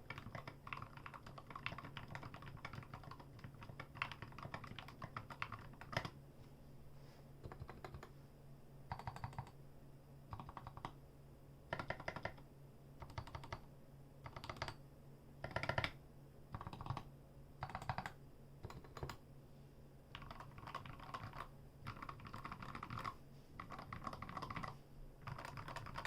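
Typing on a custom 60% mechanical keyboard with lubed Gateron Yellow linear switches in a brass plate, SA-profile ABS keycaps and a rosewood case. Continuous typing gives way in the middle to short separate clusters of keystrokes about a second apart, then steady typing resumes.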